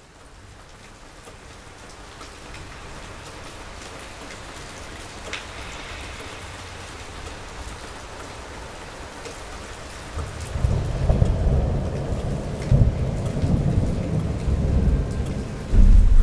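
Steady rain that fades in and slowly grows louder, then thunder rumbling in from about two-thirds of the way through, with a louder peal of thunder near the end.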